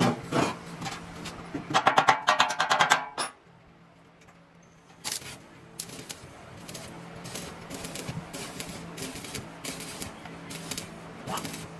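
Sharp knocks and taps on metal while the boat's exhaust pipe is being made: a fast run of about ten a second about two seconds in, a brief pause, then spaced single knocks, over a steady low hum.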